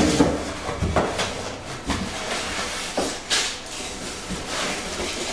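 Hands rummaging in a cardboard box and lifting out packed accessories: rustling wrapping with irregular short knocks and scrapes of cardboard, about one a second, the loudest rustle a little past the middle.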